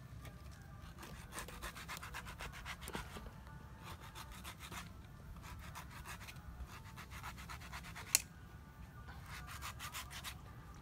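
A large knife shaving and scraping the husk of a green coconut in quick runs of strokes, with one sharp chop about eight seconds in.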